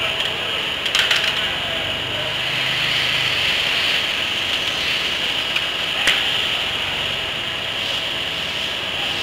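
Steady machine-shop background noise with a high hiss, broken by two sharp knocks, one about a second in and one about six seconds in, as a heavy steel roller is levered over on its wooden blocking with pry bars.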